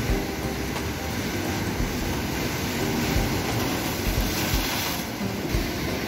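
Sea waves washing against an embankment wall, a steady rushing noise, with wind buffeting the microphone in several low thumps.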